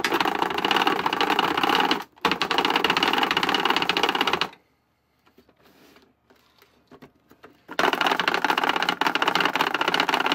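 The hand-cranked grinder of a 1993 Mattel McNugget Snack Maker toy is being turned, its plastic gear mechanism clattering rapidly as it crushes frosted cornflakes into crumbs. The cranking comes in three spells, with a brief break about two seconds in and a pause of about three seconds in the middle.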